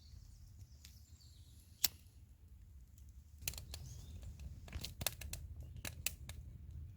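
Campfire catching and crackling, with irregular sharp pops of burning kindling starting about three and a half seconds in; a single sharp click comes a little before that.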